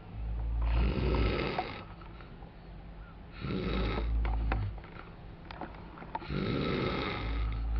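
A man snoring in his sleep: three loud snores about three seconds apart, each a low rattling rumble with a noisy rush of breath.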